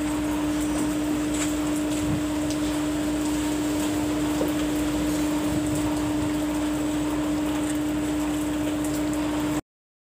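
A steady hum at one mid-low pitch, with faint hiss, that cuts off abruptly near the end.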